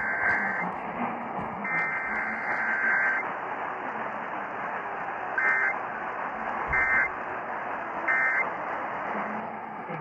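Emergency Alert System weekly test data tones from KDKA 1020 AM, heard through a portable radio's speaker over steady AM static. A long screeching burst of the EAS header ends about half a second in, and another runs from about two seconds in. Then come three short end-of-message bursts, a little over a second apart.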